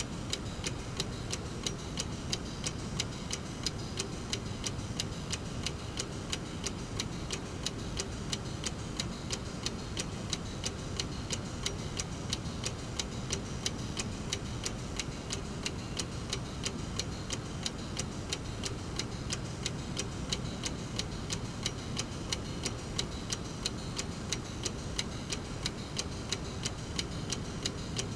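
Brass mechanical clock movement ticking steadily, its escapement giving short, evenly spaced ticks over a steady low background noise.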